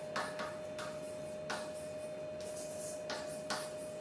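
Chalk scratching on a blackboard as words are written, a string of short strokes and taps of irregular length, over a steady background tone.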